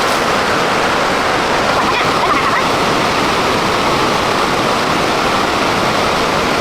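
Loud, steady rushing of water, even and without rhythm.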